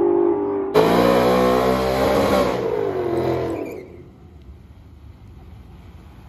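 A car engine revving hard during a drag-strip run, its pitch climbing and then falling away. About four seconds in the sound drops suddenly to a much quieter low rumble.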